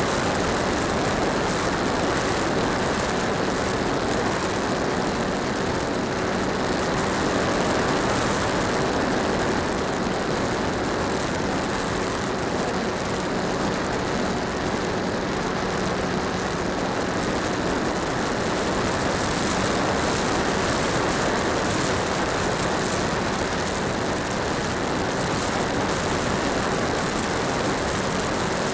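HobbyKing Skipper RC waterplane's electric motor and propeller running steadily in flight, heard from a small camera mounted on the plane. It makes a dense, even drone with a faint steady hum underneath.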